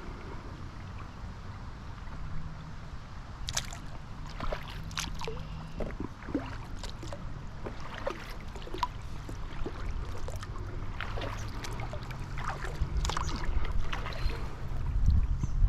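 Kayak paddle strokes: irregular small splashes and drips of water over a steady low rumble, getting louder near the end.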